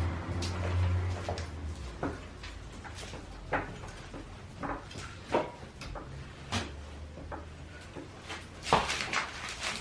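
Scattered light clicks and knocks of hand tools and metal parts being handled, uneven and well apart, with a low hum in the first second or two.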